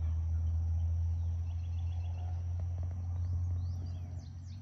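Outdoor farm ambience: a steady low rumble, with faint insect trills and a steady high insect tone, and a few quick bird chirps near the end.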